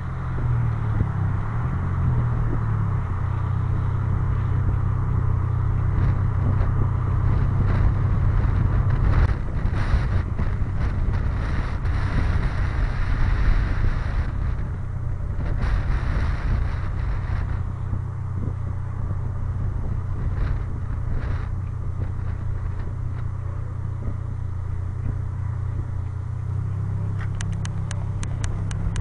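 Steady low rumble of a slow-moving car's engine and tyres on asphalt, with road and air noise that swells around the middle. A quick run of clicks near the end.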